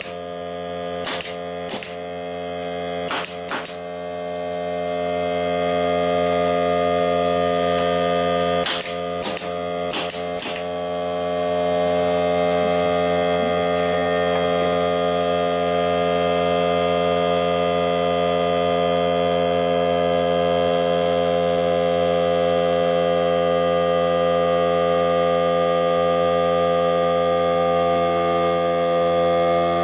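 Greenworks 40V cordless air compressor's motor running steadily as it pumps up. Over it come a series of sharp shots from a pneumatic air nailer firing into the wooden pallet, in two quick groups within the first ten seconds or so.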